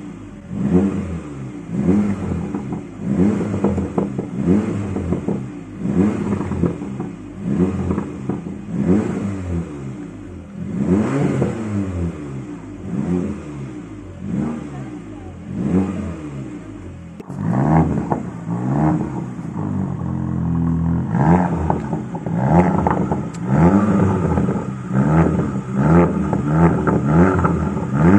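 Porsche Macan's twin-turbo V6 being blipped over and over while stationary, each rev rising and falling in about a second. Around 17 s in, the sound changes from the muffled note heard inside the cabin to the brighter exhaust note at the quad tailpipes. About 20 s in the revs are held for a moment before the short blips resume.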